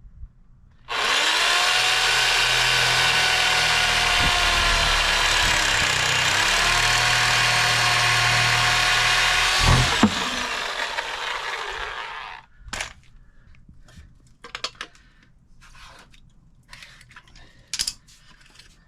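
Electric power tool motor running under load for about eleven seconds, its pitch dipping twice, then switched off and winding down. A few scattered clicks and knocks follow.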